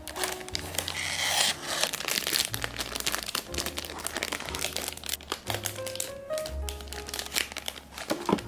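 Packaging of a miniature-toy blind box crinkling and crackling as it is handled and opened, with a noisier tearing stretch about a second in, over background music.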